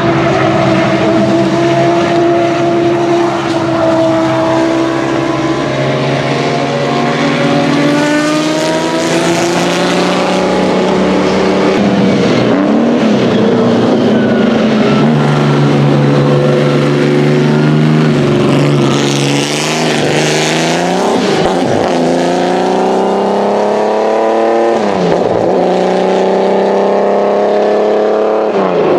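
Historic single-seater racing car's engine accelerating hard, its pitch climbing and dropping back sharply at each upshift, several times over.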